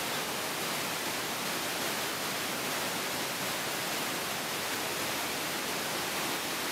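A river's whitewater pouring over a low step of rocks: a steady, even rush.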